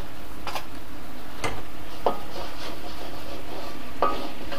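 A spatula scraping and knocking against a wok a few times as gemblong (fried glutinous-rice cakes) are turned in thickened brown-sugar syrup, over a steady hiss of the simmering syrup.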